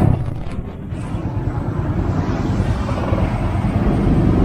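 Steady street traffic noise with a low rumble, the kind made by motorbikes and cars passing close by.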